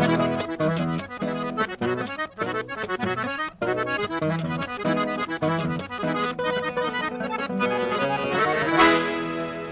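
Accordion playing a quick run of notes in a folk tune. It ends on a loud accented chord near the end that rings on and fades.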